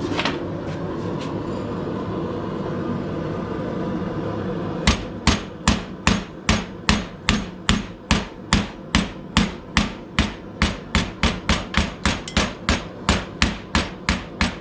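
Blacksmith's hammer striking hot steel on the anvil in an even run of blows, about three a second, cutting partway through the bar stock. The blows start about five seconds in, after only steady background noise.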